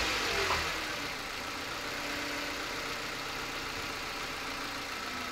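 Mitsubishi Lancer X engine fitted with an open cone air filter, its revs dropping back after a blip and settling to a steady idle about a second in.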